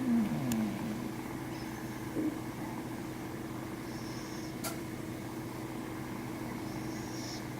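Sleeping Scottish Fold cat breathing with a faint, hissy snore about every three seconds, under a steady hum in the room. There is a brief low sliding sound right at the start and a single click near the middle.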